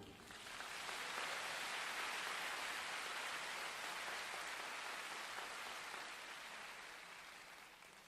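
Audience applauding, building up within about half a second after the music stops, holding steady and fading out near the end.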